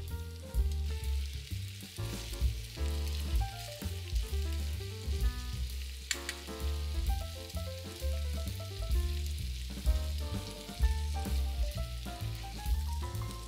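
Chicken pieces sizzling as they fry in oil in a pan, with a sharp click about six seconds in. Background music with a strong bass line and a stepped melody plays over it throughout and is the louder part.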